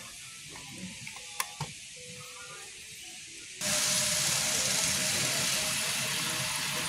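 Shop ambience: faint background music with a couple of sharp clicks, then, about three and a half seconds in, an abrupt jump to a louder, steady hiss with murmuring voices.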